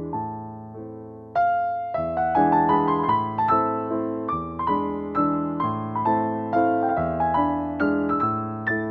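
Background piano music, single notes and chords struck a few times a second and fading, turning louder and fuller about a second and a half in.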